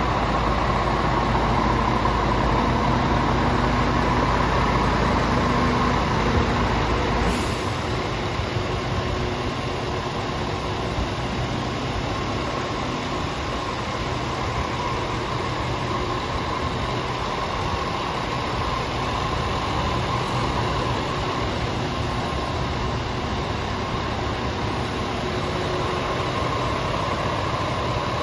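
Scania R450's 13-litre six-cylinder diesel idling steadily. Its deep low rumble drops away about seven seconds in.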